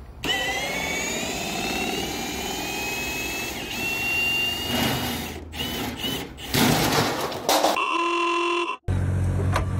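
Cordless drill spinning a scissor jack's screw, its motor whine rising gradually in pitch for about four seconds, followed by several clattering knocks. Near the end a short steady tone sounds, then a low steady hum.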